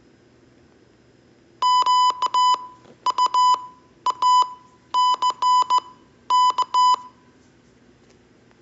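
Morse code beeps, a single electronic tone of about 1 kHz keyed on and off in dots and dashes. Five letters are sent at a moderate pace, spelling Q-U-A-C-K, the word "quack".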